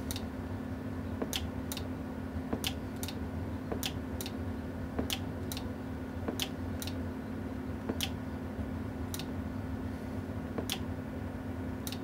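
Sharp clicks at irregular intervals, roughly one a second, over a steady low electrical hum.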